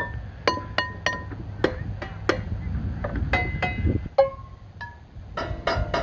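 A string of light clinks, two or three a second, each ringing briefly at one of a few different pitches like chimes or small bells, over a steady low rumble.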